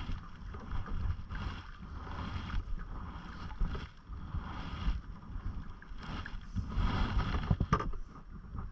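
Canoe paddle strokes, a water swish roughly every second or so, over low wind rumble on the microphone. A sharp click near the end.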